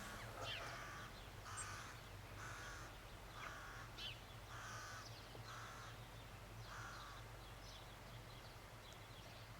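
Corvids cawing, about seven short calls roughly a second apart that stop a couple of seconds before the end.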